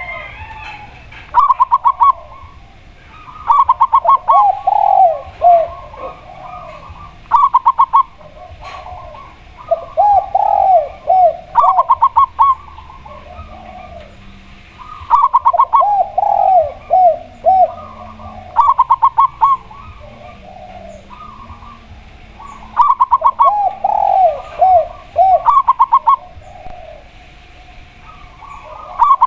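A spotted dove and a zebra dove cooing back and forth, in repeated bouts every few seconds. Each bout has a fast run of short higher coos and a slower series of lower, arched coos.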